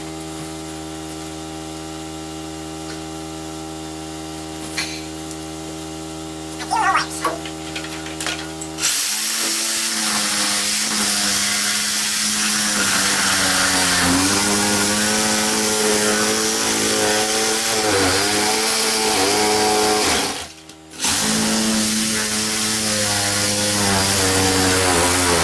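A steady hum with a few knocks for the first nine seconds or so. Then a power tool starts cutting through the wall's plywood and framing, its motor pitch dipping and rising under load. It stops briefly about twenty seconds in, then cuts again.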